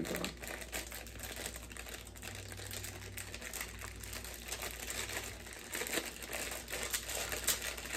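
Plastic snack bag crinkling in the hands as it is handled and pulled open, a continuous run of small crackles.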